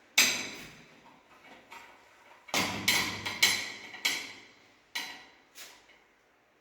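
A hand tool knocking sharply against metal during plumbing work, about seven strikes with a brief metallic ring. One loud strike comes first, then a quick run of four, then two fainter ones.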